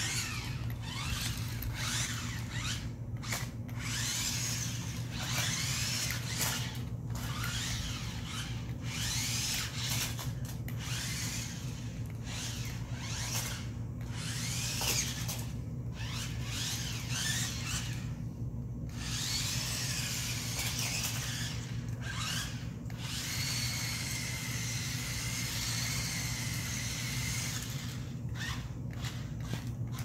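The small electric drive motors of a 4WD RC stunt car whining in a high pitch that rises and falls as the car speeds up, slows and spins, cutting out briefly each time it stops. For a few seconds past the middle the whine holds a steady pitch. A steady low hum runs underneath.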